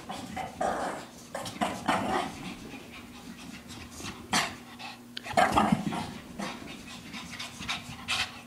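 Shih Tzu panting in quick, uneven breaths while running about at play, with a louder outburst about five and a half seconds in.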